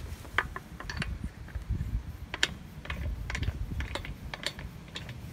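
Steel lug nuts being spun by hand onto the wheel studs: a run of light, irregular metallic clicks and rattles as they thread on.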